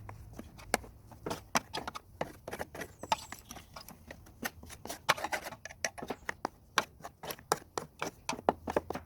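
Plastic spanner scraping packed grass cuttings off a Flymo Easiglide 300 hover mower: an irregular run of quick scrapes and clicks, several a second.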